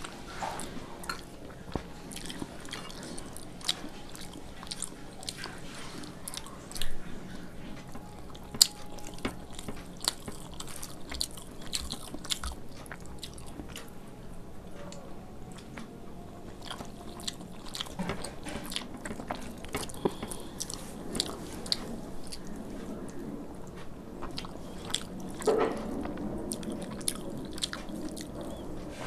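A person eating close to the microphone: chewing and wet mouth smacks with many small sharp clicks, two louder sharp sounds about a third of the way through, and heavier chewing near the end.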